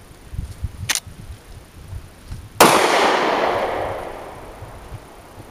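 A single gunshot from a firearm, its report fading away over about two seconds, preceded about a second in by a shorter, sharper crack.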